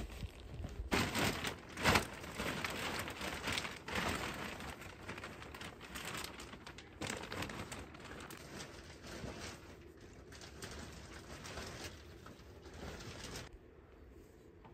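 Irregular rustling and crinkling, loudest in the first few seconds and growing fainter near the end.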